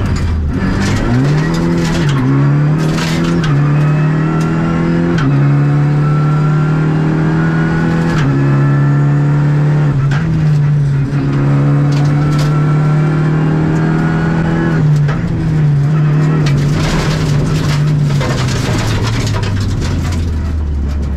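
Renault Clio Rally5's turbocharged 1.3-litre four-cylinder engine heard from inside the cabin, driven hard on a rally stage: revs climb and drop with each gear change, with stretches held nearly steady. Sharp knocks and rattles come now and then, and near the end the revs fall steadily as the car slows.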